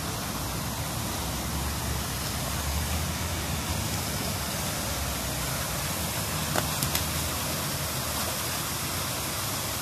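Steady rushing splash of the pond's fountain jets, with a couple of brief clicks about two-thirds of the way through.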